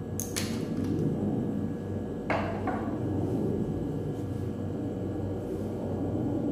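Sharp clicks and knocks from handling the serum dropper and its bottle: one a quarter second in and two more a little over two seconds in, over a steady low hum.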